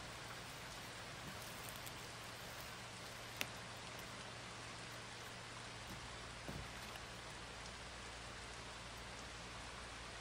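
Steady, even hiss, with one sharp click about three and a half seconds in and a softer knock about six and a half seconds in.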